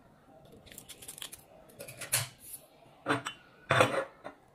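Plastic-foil coffee sachet crinkling and being snipped open with scissors, then a ceramic cup and saucer set down on the table with a few loud knocks about three and four seconds in.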